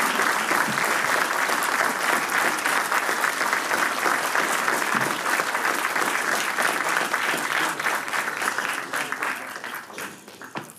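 Large hall audience applauding steadily, the clapping dying away near the end.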